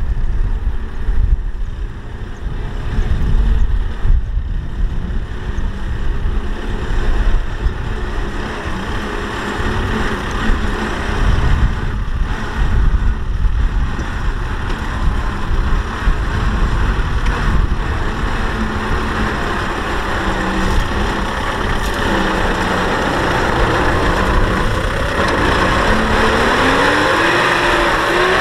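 Kubota M6040SU tractor's four-cylinder diesel engine running steadily under load while pulling a loaded trailer through mud. Its pitch rises over the last few seconds as the engine revs up.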